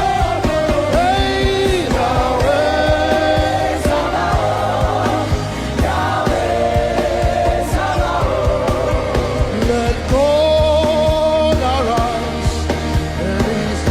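Live gospel worship music: voices singing long held, wavering notes over band accompaniment with a steady bass.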